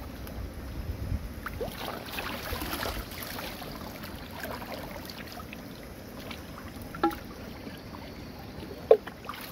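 Clay pots dipped into a shallow stream to fill, water splashing and gurgling around them, with two short sharp gurgles in the second half.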